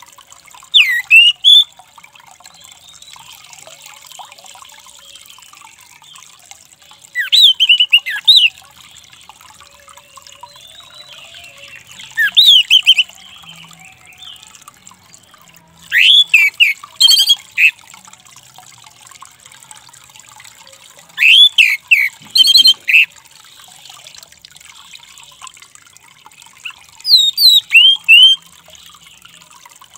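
Male orange-headed thrush singing six short bursts of quick, sharp whistled notes that slide up and down, about five seconds apart.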